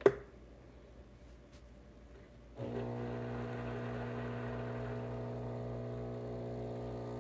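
A click, then about two and a half seconds in the Breville Barista Pro's vibratory pump starts up with a steady hum, pushing water into the coffee puck during manual pre-infusion.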